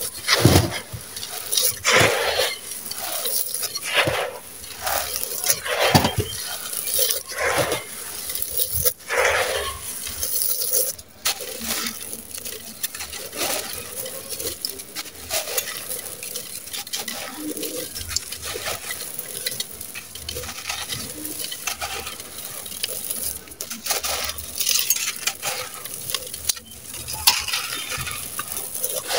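Dry sand-cement chunks crushed and crumbled by hand, with gritty crunching and grains and small pieces falling and scraping into a clay pot. The crunches come in irregular, louder clusters during the first third, then settle into a lighter, steady gritty crumbling.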